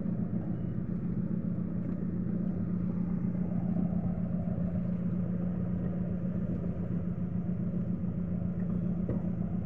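Motorized outrigger boat (bangka) engine running steadily, a constant low drone with no change in speed.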